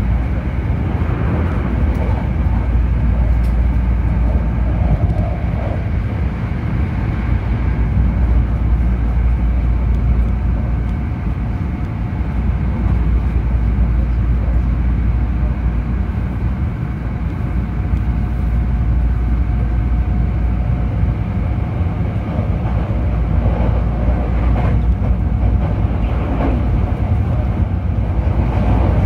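Running noise of a Hankyu Kyoto Line limited express train at speed, heard inside the passenger car: a steady low rumble of wheels on rail with a faint whine above it.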